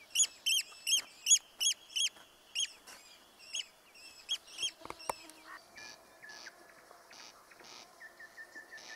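A bird calling: a quick series of short, sharp, high-pitched calls at about three a second, thinning out after about three seconds. Fainter high chirps follow in the second half.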